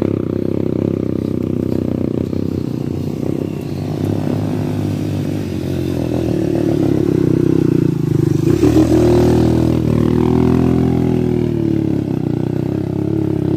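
Motorcycle engine running at low revs on a rough dirt trail. From about eight seconds in the engine note gets louder and swells up and then back down in pitch over a few seconds.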